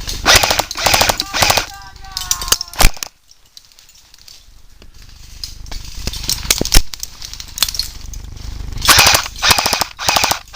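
Airsoft rifles firing in rapid bursts of sharp rattling clicks. One burst comes at the start, a few lone shots follow in the middle, and another fast burst comes near the end.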